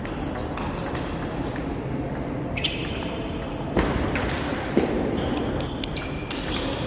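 Table tennis rally: the plastic ball clicking off the rackets and the table in quick succession, with scattered clicks of play from neighbouring tables.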